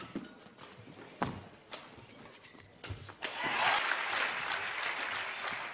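Badminton rally: sharp racket strikes on the shuttle and players' footfalls on the court. About three seconds in, the arena crowd breaks into loud cheering and applause as the point is won.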